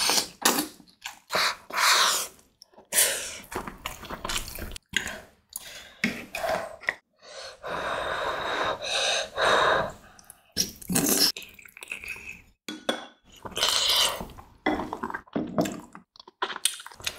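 Close-miked eating sounds of spicy hot pot: slurping saucy food off chopsticks, chewing and sucking with wet mouth clicks, and short breaths blown on hot food, in uneven bursts with pauses between them.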